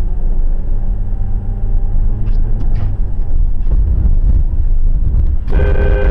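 Loud, steady low rumble of a vehicle driving, with a few faint knocks. About five and a half seconds in, a horn starts a steady blast.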